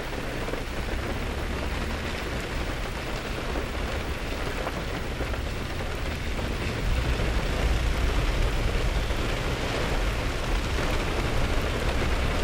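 Heavy tropical-storm rain pouring down steadily, with a low rumble underneath that grows louder about seven seconds in.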